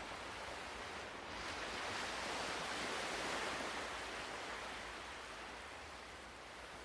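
Ocean waves washing in, one wave swelling about a second in and slowly falling away over the next few seconds.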